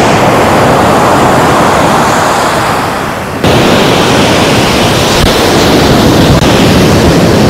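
Sea waves washing on the shore, a steady loud rush of noise that dips and then cuts back in abruptly about three and a half seconds in.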